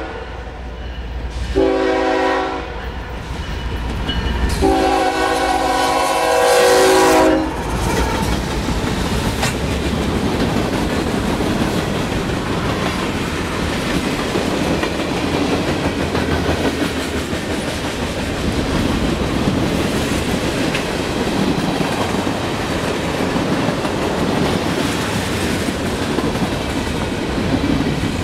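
Locomotive air horn sounding several tones at once: a short blast about two seconds in, then a longer blast ending about seven seconds in, the close of the usual grade-crossing sequence. The train then passes with a steady rumble and the clatter of wheels over the rails.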